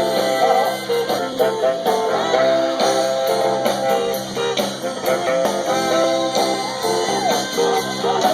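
Live blues band playing, with guitar and a horn section.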